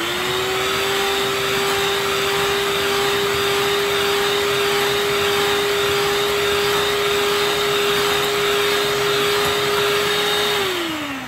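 Electric hand mixer running at a steady speed, its beaters whipping cake batter of eggs, sugar and mashed plantain in a glass bowl. The motor hum holds one even pitch, then drops in pitch and winds down near the end as it is switched off.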